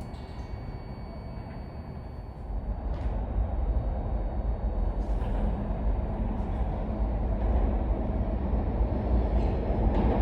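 R160 New York City subway train running on the Queens Boulevard line, a low rumble that grows steadily louder from about two and a half seconds in, with a few short higher-pitched noises along the way.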